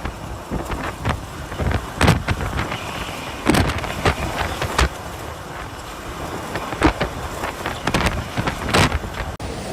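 Typhoon-force wind gusting, hitting the microphone in irregular blasts over a constant rushing noise.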